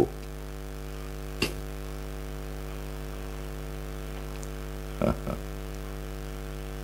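Steady electrical mains hum, with a single sharp click about a second and a half in and a brief short vocal sound about five seconds in.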